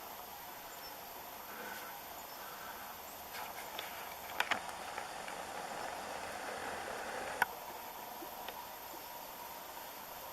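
Hairy woodpecker pecking at a bird feeder: a cluster of sharp taps near the middle, then one more loud tap a few seconds later, over a steady outdoor hiss.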